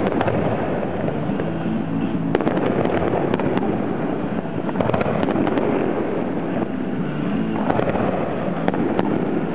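Aerial fireworks shells launching and bursting, with sharp reports scattered through, over music that plays throughout.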